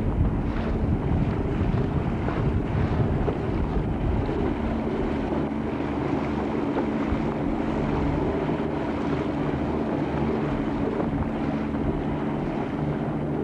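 Motorboat engine running steadily, with wind buffeting the microphone and water rushing past the hull.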